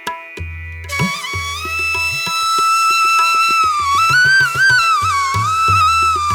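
Background music: a sustained melody line that bends and slides in pitch, entering about a second in, over repeated low drum strokes.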